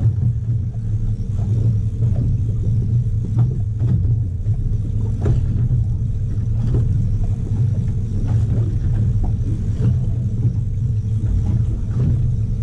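Steady low rumble of a fishing boat at sea, with scattered light knocks and taps.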